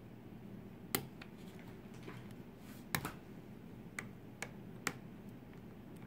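Sharp metallic clicks of a lock pick and tension wrench working the pins inside a pin-tumbler lock cylinder, about six irregular clicks with the two loudest about one and three seconds in.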